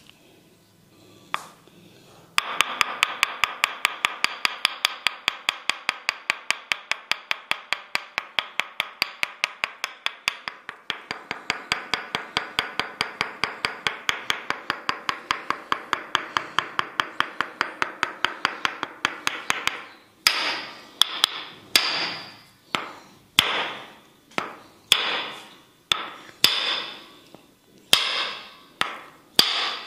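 Tok sen massage: a wooden mallet tapping a wooden wedge held against the body. First comes a fast, even run of taps, about four or five a second. About two-thirds of the way through it changes to slower single knocks, roughly one a second, each ringing briefly.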